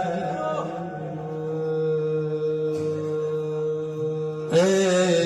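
Arabic madih chanting: a sung line dies away in the first second and gives way to a long, steady held drone. A male voice comes back in with the next line near the end.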